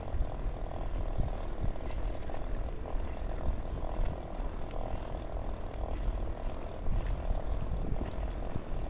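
Bicycle ride along an asphalt path: steady wind buffeting on the microphone over the low rumble of the tyres rolling, wavering a little in level.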